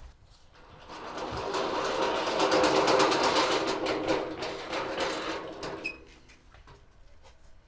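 A small motor running with a rapid, even rattle, swelling up over about two seconds and fading out about six seconds in.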